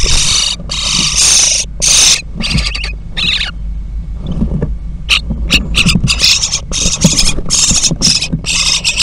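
Common starling nestlings begging in the nest box: harsh, rasping calls in quick bursts. They break off for about a second and a half near the middle, then start up again in many short bursts as an adult arrives to feed them. Low bumps and rustling come from the birds jostling on the nest.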